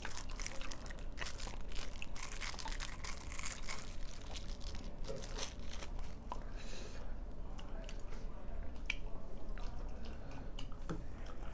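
Plastic straw wrapper crinkling as it is torn off, dense in the first few seconds, then light clicks and scraping as the straw is pushed into a small Tetra Pak juice carton near the end, with some chewing mixed in.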